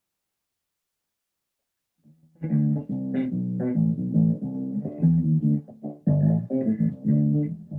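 Electric bass guitar playing a run of plucked notes, starting about two and a half seconds in.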